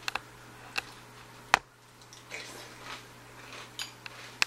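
A few sharp clicks and taps, two close together at the start, the loudest about a second and a half in and more near the end, with a brief faint rustle in between, over a low steady hum.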